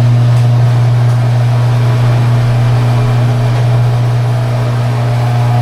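Garage door opener's electric motor running steadily with a loud hum as it drives the door.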